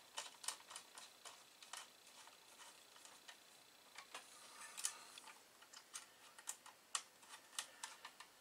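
Faint, irregular small clicks and taps of a Phillips screwdriver and screw hardware as the mains outlet's bolts and nuts are fitted into the power supply's metal case, about two clicks a second.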